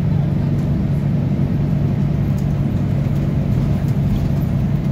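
Steady low drone inside a Scania CK230UB OmniLink city bus under way: the rear-mounted diesel engine and ZF 5HP504C automatic gearbox running, largely masked by the bus's air conditioning.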